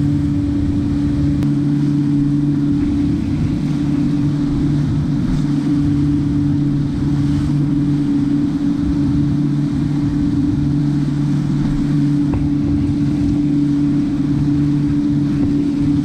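Small boat's engine running steadily at cruising speed, with a low, even hum over the rush of water and wind past the hull.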